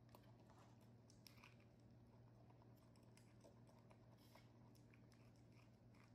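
Faint, scattered crunches and clicks of a baby monkey biting kernels off a corn cob and chewing them, over a steady low hum.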